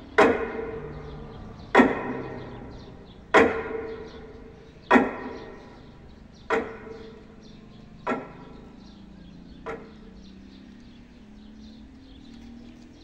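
Slow tolling strikes about every second and a half, each ringing out and dying away, marking a minute of silence. They grow fainter and stop about ten seconds in.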